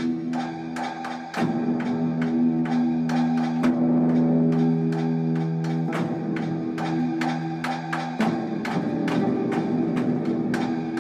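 Music: a steady ticking, woodblock-like percussion, about three clicks a second, over held low chords that change every couple of seconds.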